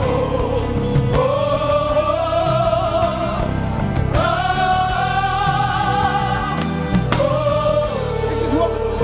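Gospel praise and worship music: long sustained sung notes, changing pitch every few seconds, over a live band.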